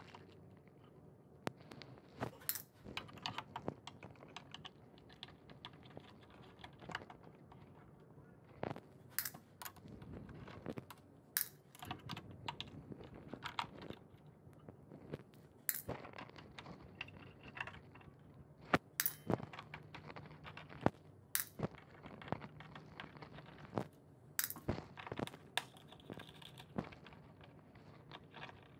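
Small irregular clicks and taps of a Phillips screwdriver backing out the row of small screws along the bottom edge of an all-in-one PC, with the loose screws handled one at a time.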